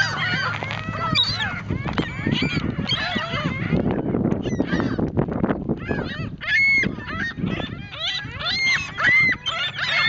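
A flock of gulls calling over one another: a dense, constant jumble of short squawks and cries, with a few louder, clearer calls standing out in the second half.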